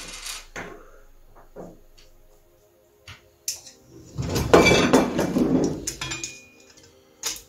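Metal parts of a telescope mirror cell being handled on a wooden bench: a few light clicks and knocks, then a longer stretch of clanking and rattling about four to six seconds in as the frame is lifted and set down, and a sharp click near the end.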